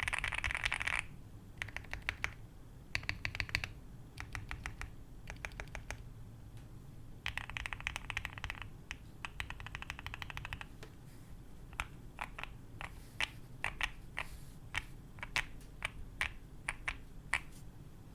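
Keystrokes on a QK65 custom mechanical keyboard with lubed Gateron CAP Golden Yellow linear switches, a POM plate and PBT keycaps. It opens with fast rolling runs of keypresses, then short groups of presses on the larger stabilized keys, whose stabilizers are tuned and lubed. Two more quick runs follow, and in the last part come single, well-spaced presses.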